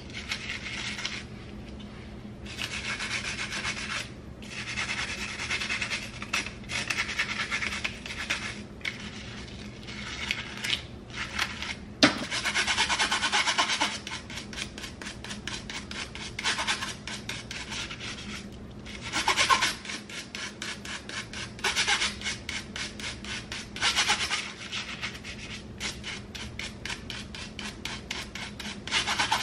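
A stiff-bristled nail brush scrubbing a wet fine-tooth comb, in quick back-and-forth strokes that come in bursts of a second or two with short pauses between. There is one sharp knock about twelve seconds in.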